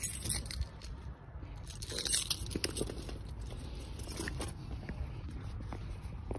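Crunching, rustling handling noise from a hand-held phone being moved about, with scattered clicks, over a steady low rumble.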